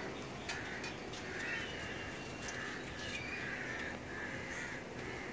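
Crows cawing repeatedly, a string of short harsh calls over a steady background hiss, with a sharp click about half a second in.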